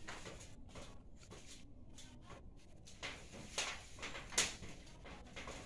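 Quiet background with a few brief, sharp clicks and knocks, three to four and a half seconds in.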